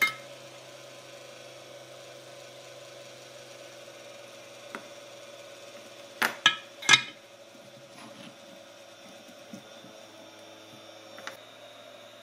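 Small hand tools handled on a workbench: a soldering iron and metal tweezers picked up and set down. There are three sharp clicks and clinks about six to seven seconds in and a few lighter taps elsewhere, over a steady faint hum.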